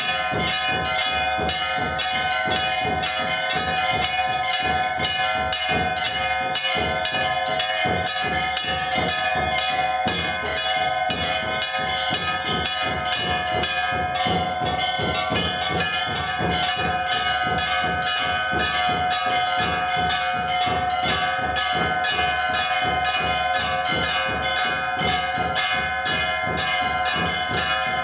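Temple bells struck rapidly and continuously, their ringing tones overlapping into a steady clangour.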